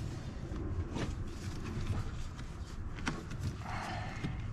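Hand-handling noise at a car's inner door panel: two sharp clicks, about a second in and about three seconds in, as the wiring harness's plastic clips are pressed into the door, then a brief rustling scrape of the harness against the metal, over a steady low hum.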